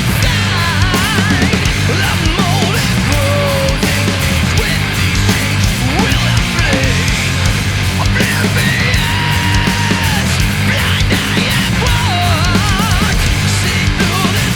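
Loud rock music with a steady driving beat, laid over the video as a soundtrack.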